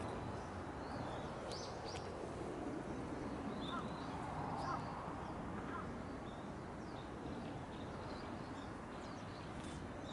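Short, high bird chirps here and there, a small cluster of them about four seconds in, over a steady low background noise.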